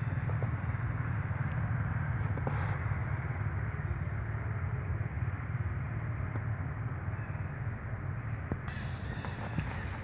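Steady outdoor low rumble with a hiss over it and a few faint clicks; no clear animal call stands out.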